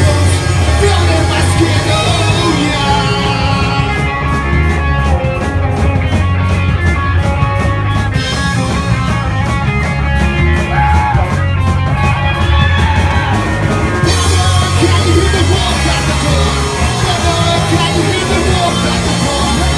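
A live punk rock band playing loud, with guitars, bass and drums and some singing. The bright top end drops away for about ten seconds in the middle, then comes back.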